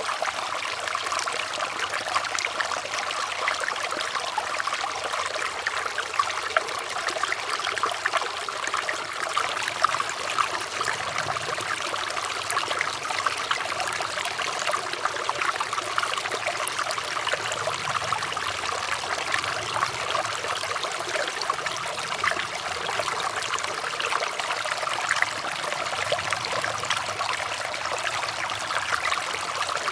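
Running water trickling and splashing steadily, like a small stream, with a continuous fine bubbling texture and no change in flow.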